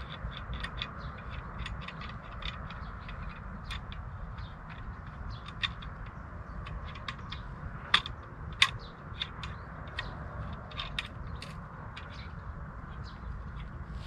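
Small clicks and ticks of fishing tackle being handled at a rod pod, with two sharper clicks just after the middle, over a steady low rumble.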